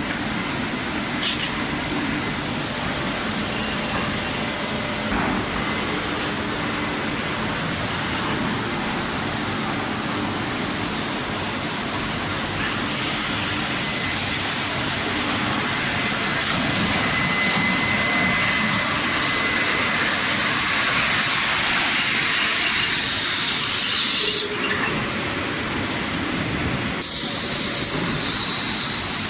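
Wide-belt two-head sanding machine running, sanding plywood panels, with a steady rushing hiss. The hiss grows brighter about a third of the way through and dulls for a couple of seconds near the end.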